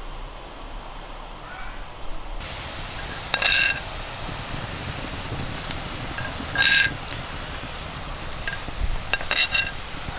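Liquid boiling and hissing in a steaming metal pot over a fire, with a metal spoon clinking against the pot with a short ringing note, once, then again, then twice in quick succession near the end.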